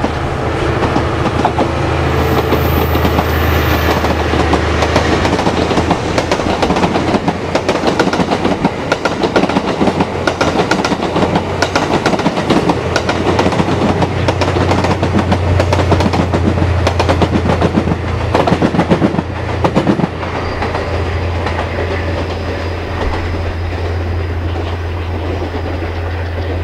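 Train Suite Shiki-shima (JR East E001 series) running past, its wheels clattering over rail joints and station points, with a steady low hum underneath. The clatter eases off about 20 seconds in as the train moves away, while the hum carries on.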